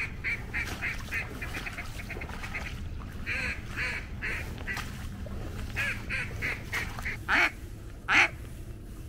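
Duck quacking in several runs of short quacks, one run quick-fire, ending with two louder, longer quacks near the end.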